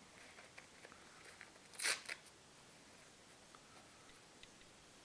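Faint rustling of a Zewa paper towel being torn and twisted into strips by hand, with one short, louder rip about two seconds in.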